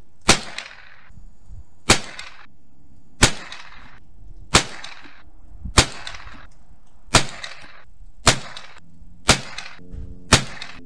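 Savage B22 Precision .22LR rifle firing nine shots, about one every second and a quarter, each a sharp crack with a short echo after it. The rounds are high-velocity 1200 fps Federal Auto Match, supersonic at the muzzle.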